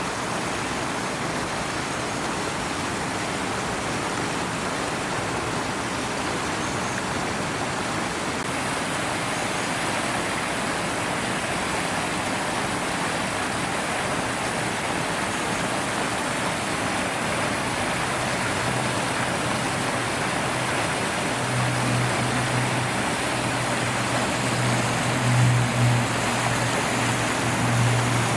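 Steady rush of water spilling over a concrete weir in a moat. In the second half a low steady motor hum joins in and grows louder.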